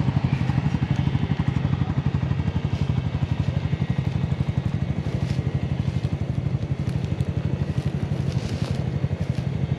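Off-road vehicle engine running steadily at low speed, with a fast, even throb and no revving.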